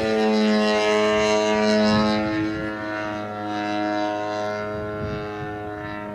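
Propeller engine of a small aerobatic airplane running steadily in flight, a buzzing note that dips slightly in pitch about two seconds in and fades as the plane draws away.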